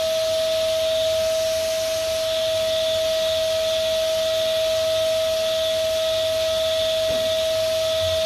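Vacuum cleaner running steadily: a constant whine over the hiss of air drawn through the hose, the nozzle being worked over a sofa's seat base.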